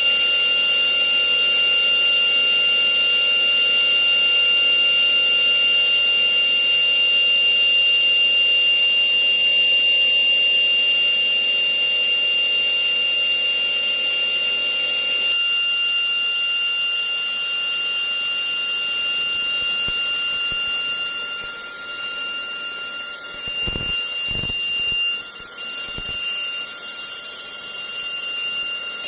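GMN high-speed grinding spindle running at speed: a steady high-pitched whine of several tones over a hiss. About halfway through, one lower tone drops out and the hiss brightens. A few short low thumps come near the end.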